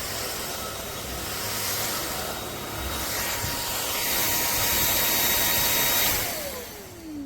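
Cordless stick vacuum cleaner running with a steady high whine over a rush of airflow. About six seconds in it is switched off, and the motor's whine falls in pitch as it spins down.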